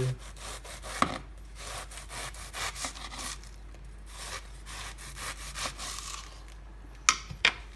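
Serrated bread knife sawing back and forth through a half head of cabbage on a wooden cutting board, shredding it into thin strips in repeated short strokes. A few sharper knocks stand out, one about a second in and two near the end.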